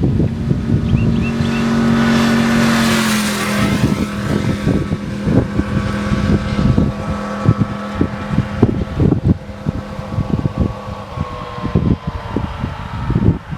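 Yamaha R1 sport bike's crossplane inline-four passing by at speed. The engine note swells to its loudest about two to three seconds in, drops in pitch as it goes past, then fades away as a slowly falling tone. Wind gusts buffet the microphone throughout.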